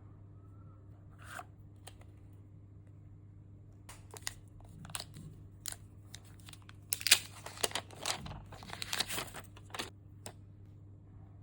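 Packaging being handled and opened by hand: plastic or paper crinkling and tearing with sharp clicks, scattered at first and busiest about two-thirds of the way in. A steady low hum runs underneath.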